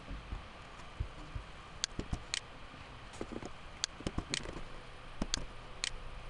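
Computer mouse clicking: about six short, sharp clicks, falling roughly in pairs half a second apart, with a few soft low thumps, over faint steady room noise.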